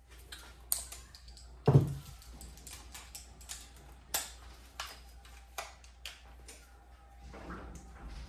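Scattered clicks and knocks of metal parts being handled, about a dozen in all; the loudest is a dull clunk a little under two seconds in.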